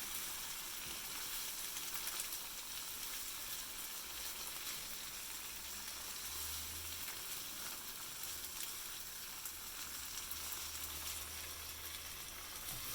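Onions, peppers and spices frying in a pan: a steady sizzle.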